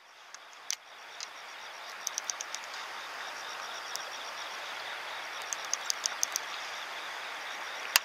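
Steady outdoor ambience by a river before dawn: an even hiss that fades in over the first second or two, with faint repeated high chirping and a few light ticks.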